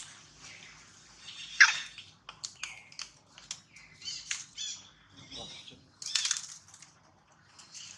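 An irregular run of short, high-pitched animal chirps and squeaks, with one loud sharp cry about one and a half seconds in, over crackling and rustling of dry fallen leaves.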